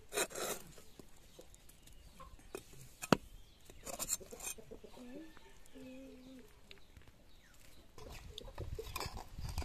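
A metal knife blade scraping and knocking against a clay handi as its baked dough seal is cut away, with one sharp knock about three seconds in. A faint bird call comes midway, and louder scraping of the blade inside the pot builds near the end.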